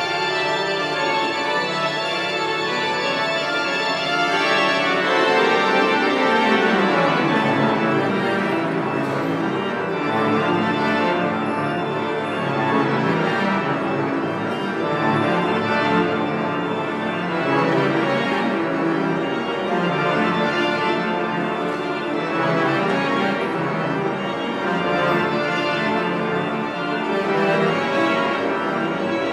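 Church pipe organ playing a full, sustained piece of many simultaneous voices, its bass line sinking lower a few seconds in.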